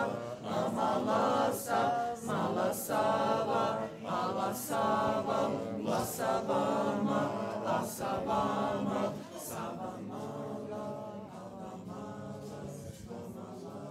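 Choir singing, loud phrases with sharp sibilant consonants every second or two, falling to softer, more sustained singing about nine and a half seconds in.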